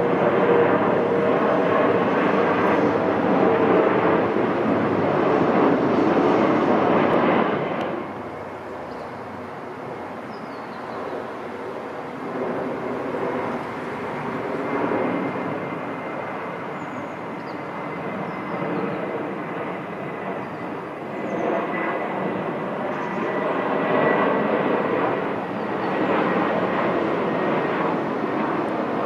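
Aircraft engine noise, loud at first and dropping suddenly about eight seconds in, then a quieter steady engine sound with a thin high whine that builds again toward the end.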